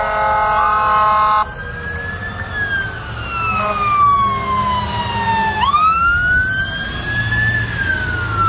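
Fire truck air horn sounding a held chord that cuts off about a second and a half in. Then a siren wails, falling slowly for several seconds, sweeping back up and starting to fall again.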